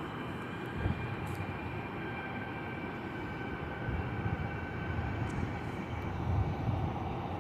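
Jet airliner engines on approach: a steady whine over an uneven low rumble.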